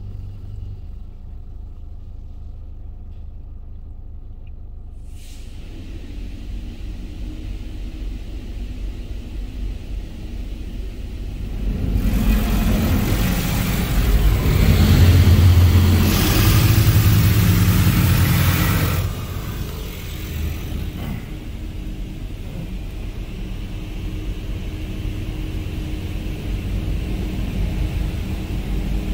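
Laserwash G5 touchless car wash heard from inside the car. Its spray passes over the car, and about twelve seconds in high-pressure water drums loudly on the windshield and roof for several seconds. It then falls back to a steady rushing with a low rumble that builds slightly near the end.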